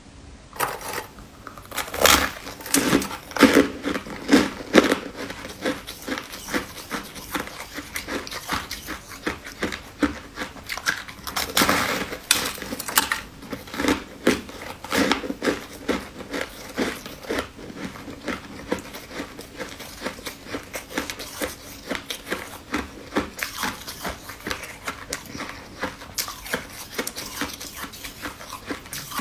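Crunchy biting and chewing of a white, crumbly sweet food ball: a dense run of crackling crunches, loudest around two to five seconds in and again around twelve seconds in.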